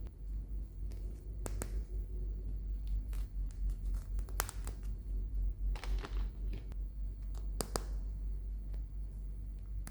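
Hands handling a toy's plastic packaging: scattered, irregular crinkles and sharp clicks over a steady low hum.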